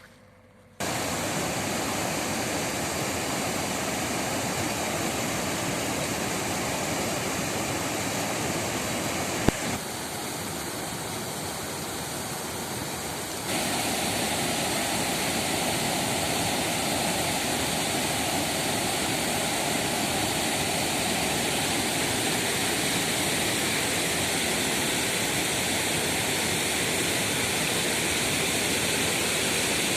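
Waterfall rushing: a steady, full-range noise of falling water that drops slightly in level for a few seconds and then comes back up. A single sharp click sounds about a third of the way in.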